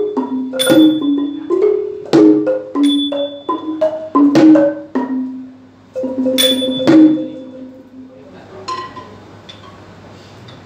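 Ranat thum, the Thai low-pitched wooden xylophone, played with padded mallets in the closing phrase of a solo, with small ching cymbals striking a high ring on some beats and a hand drum. The last strokes come about seven seconds in and the notes ring away to a low level.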